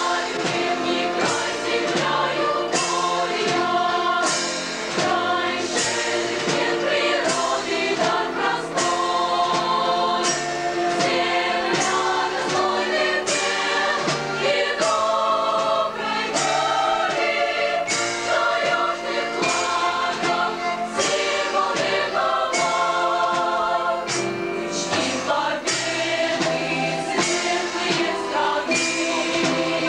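A choir of women and men singing a hymn, accompanied by a Russian folk-instrument orchestra of plucked strings playing in a steady rhythm.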